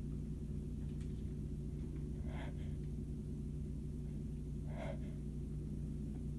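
A woman's short gasping breaths between sneezes in a sneezing fit, two clear ones a couple of seconds apart, over a steady low background hum.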